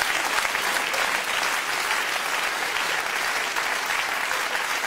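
Studio audience applauding, steady dense clapping mixed with some laughter.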